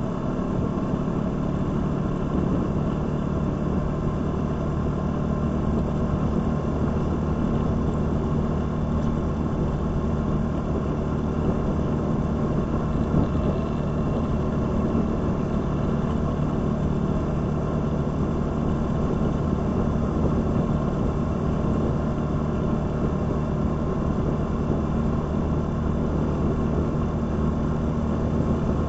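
Motorcycle engine running at steady, unchanging revs: a constant drone that holds the same pitch throughout.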